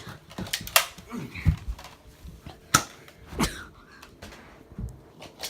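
A few scattered sharp clicks and knocks, the loudest just under a second in and two more close together around the middle, with fainter rustling between.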